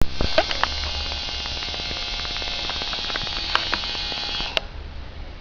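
Electric tattoo machine buzzing steadily, then switching off about four and a half seconds in, with a few light clicks along the way.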